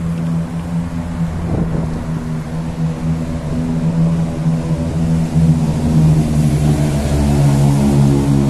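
Motor vehicle engine running close by in street traffic, a steady pitched drone that grows a little louder in the second half.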